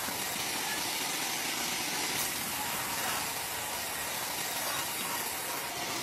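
Wood-Mizer WM4500 industrial band sawmill running, a steady, even hissing machine noise.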